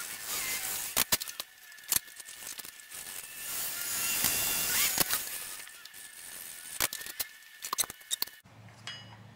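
Workshop handling sounds at a bench vise while a wooden handle is fitted to a blade's tang: sharp clicks and knocks of wood and metal, with a few seconds of scraping noise in the middle that swells and fades.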